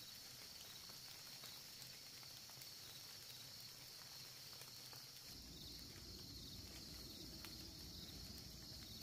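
Faint, steady high-pitched insect chorus with a pulsing trill, and a few faint scattered ticks. A low rumble joins about five seconds in.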